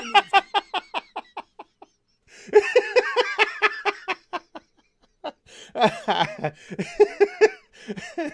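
A man laughing hard in three bouts of quick, high-pitched pulses of laughter, with short breaks between them.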